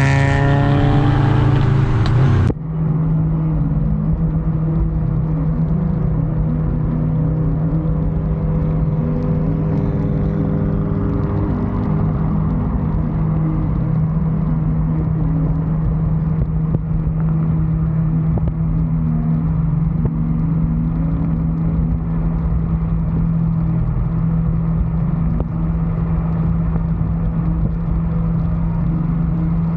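Subaru WRX's turbocharged flat-four engine under way. For the first couple of seconds the engine note shifts in pitch with throttle, then it cuts abruptly to a steady drone as the car cruises at an even speed.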